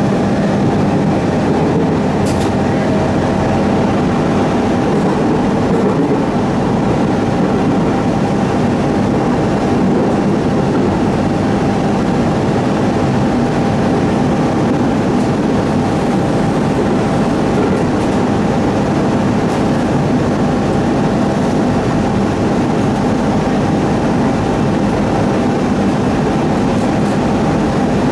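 JR East 701 series electric train heard from inside the passenger car, running at a steady speed: an even rumble of wheels on rail with a few steady tones on top.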